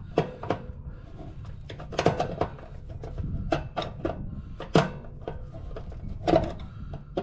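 Scattered sharp clicks and knocks of hand tools and metal parts being handled, about eight in all at uneven intervals.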